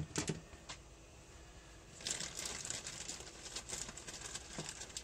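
A few light clicks, then from about two seconds in a continuous crinkling rustle of something being handled.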